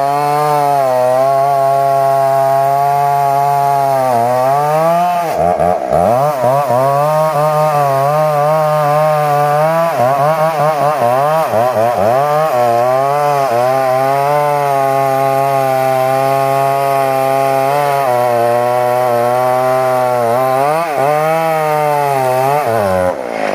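Two-stroke chainsaw running at high revs while cutting jowar wood, its engine note dipping and wavering again and again as the chain bogs in the cut, with steadier stretches in between.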